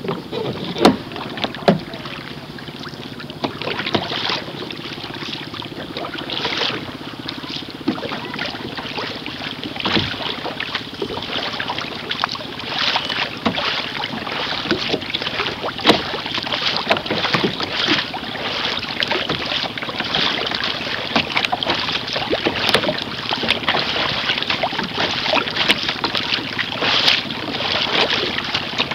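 Sea water splashing and rushing along the hull of a canoe moving through choppy water, with frequent irregular splashes and wind on the microphone.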